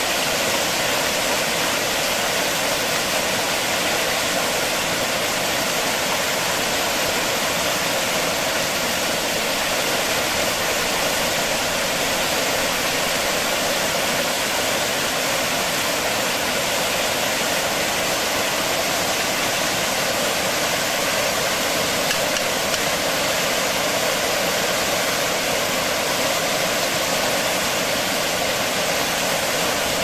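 Chopped onions and green chillies sizzling in hot oil in a wok: a steady, unbroken sizzle.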